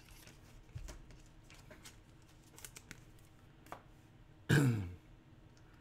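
Trading cards being handled and shuffled on a wooden desk: faint scattered clicks and rustles of card stock. About three-quarters of the way through comes one short vocal sound that falls in pitch.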